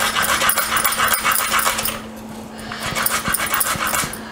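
Kitchen knife rapidly slicing an onion thinly on a wooden cutting board: quick, crisp strokes in two runs, with a short pause about two seconds in. A faint steady low hum runs underneath.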